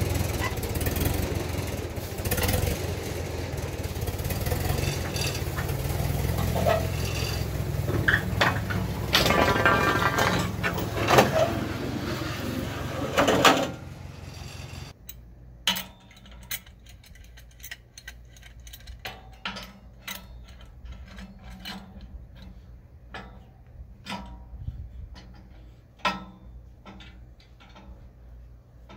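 A tractor engine running with the box blade rattling behind it. About halfway through it cuts off to scattered light metal clicks and taps as a clamp is worked on the steel box-blade frame.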